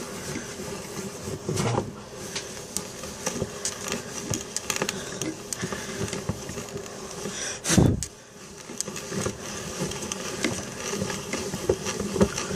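Hand-cranked gear drill being turned steadily, its gears and bit clicking and rattling as the bit bores into the desk. One louder bump about eight seconds in.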